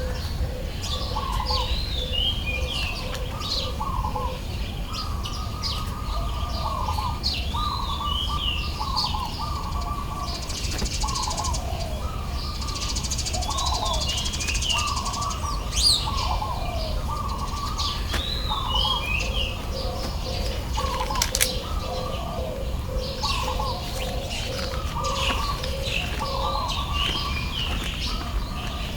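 Several birds calling together: repeated chirps, short falling phrases recurring every few seconds, and a rapid low pulsing call in the first few seconds and again through the later part.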